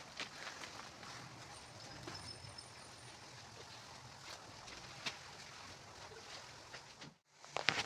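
Faint outdoor background noise with a few scattered light clicks, cut off by a brief moment of total silence near the end.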